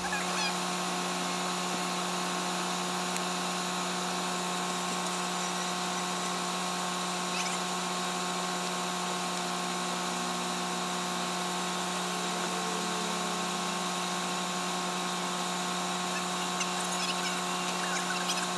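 Electric slide-out motors of a 2014 Newmar Dutch Star motorhome running with a steady buzzing whine as the full-wall slide moves, the motors just retimed and reprogrammed to cure a slide that would not close properly.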